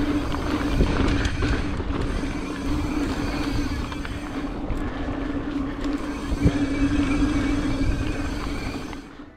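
Mountain bike ridden over rocky trail, heard from a GoPro on the rider: wind buffeting the microphone and tyres rumbling over rock, with a steady buzz that cuts in and out and a sharp knock about six and a half seconds in.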